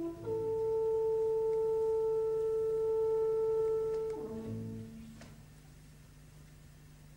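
Opera orchestra music: a long, steady held note, pure in tone, lasting about four seconds, then a step down to lower held notes that fade away about five seconds in.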